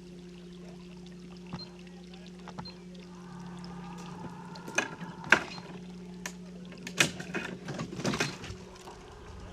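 An engine idling with a steady low hum, with water splashing and a cluster of sharp knocks and clatters from about halfway through.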